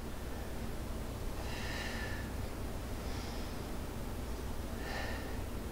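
A woman's paced breathing while she works through a core exercise: three soft breaths, one to two seconds apart, over a steady low room hum.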